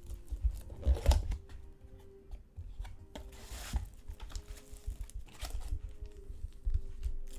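Trading card packs being torn open and cards handled: scattered rustling, tearing and light taps, with a longer rustle about three and a half seconds in.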